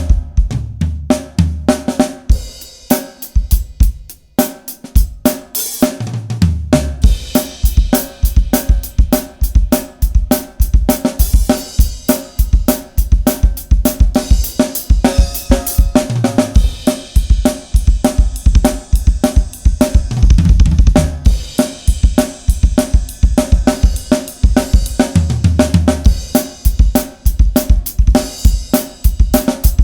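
Drum kit (Pacific Drums 805 series with a Mapex snare and Sabian cymbals) played in a full groove of kick, snare, hi-hat and cymbals over a backing track. It opens with a few sparse hits and settles into steady playing from about six seconds in.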